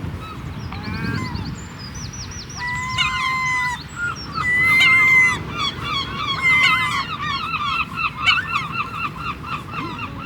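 Gulls calling: a few long drawn-out cries in the middle, then a fast run of repeated short yelps.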